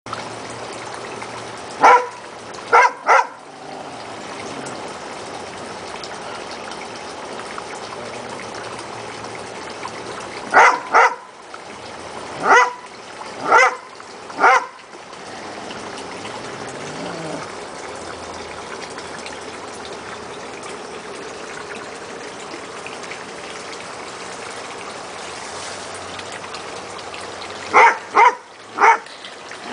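Airedale terrier barking in short, sharp barks in three bursts: three barks about two seconds in, about five between ten and fifteen seconds, and three more near the end. A steady trickle of running water sounds underneath.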